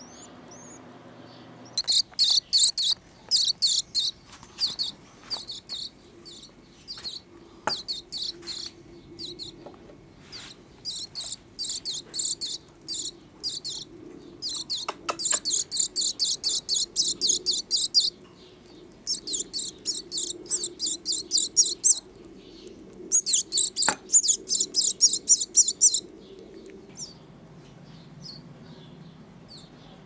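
Hand-reared canary chick begging while being fed by hand: rapid, high-pitched cheeps in repeated bursts of several calls a second, starting about two seconds in and dying away a few seconds before the end.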